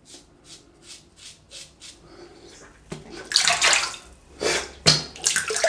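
Blackland Osprey adjustable safety razor scraping through lathered stubble in short, faint strokes on an against-the-grain pass, then several louder bursts of splashing water from about three seconds in.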